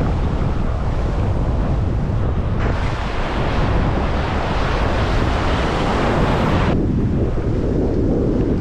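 Wind buffeting the microphone over the rush of surf breaking on a reef. A louder hiss of water swells a couple of seconds in and cuts off suddenly about two-thirds of the way through.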